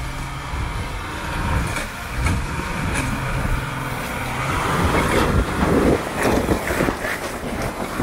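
VW Amarok's 3.0 V6 turbodiesel working under load as the pickup climbs a steep rocky dirt track, with tyres crunching and clicking over loose stones. It gets louder about halfway through as the truck comes up close.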